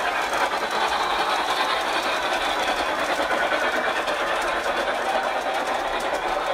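Model train running steadily on layout track: an even motor whir with the rapid rattle of wheels on the rails.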